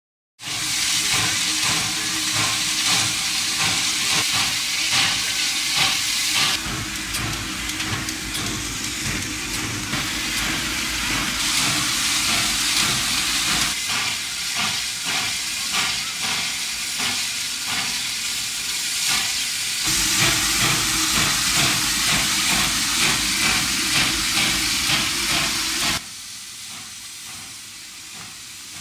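Steam locomotive hissing loudly, steam escaping around its cylinders and drivers, with a rapid uneven pulsing under the hiss. The sound drops noticeably quieter near the end.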